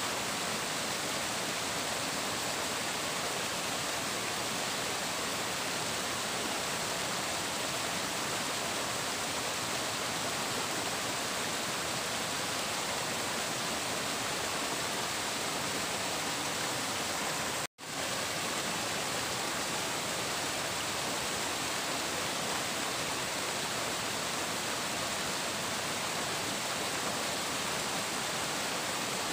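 Flowing water rushing steadily, an even, unbroken wash of sound. It cuts out for an instant about eighteen seconds in and resumes at once.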